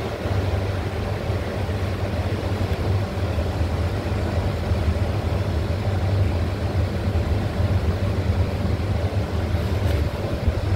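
A steady low machine hum with a rumbling, noisy wash above it.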